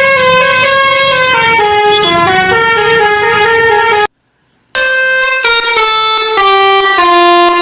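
Bus's basuri-type telolet musical air horn playing a loud melody of stepped notes. It cuts out for about half a second past the middle, then the tune resumes.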